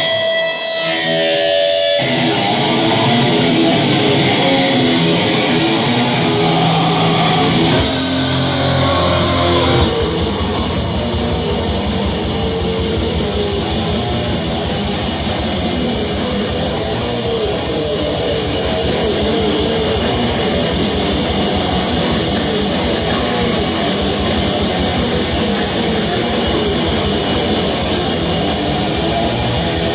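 Extreme metal music with distorted guitar. A heavier guitar part comes in about two seconds in, and about ten seconds in the full band comes in with fast, dense drumming.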